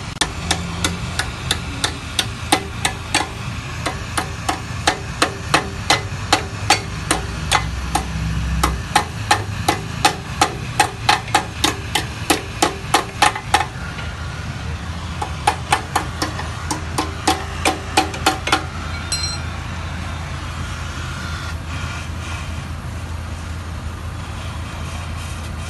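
Rapid, evenly spaced hammer blows on the metal of a scooter's silencer, about three a second, each with a short metallic ring. They pause for a moment past the middle, resume for a few seconds and then stop, leaving a steady low drone.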